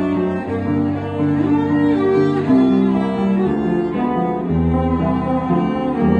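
Cello played with the bow, a melody of sustained notes moving from pitch to pitch, with piano accompaniment.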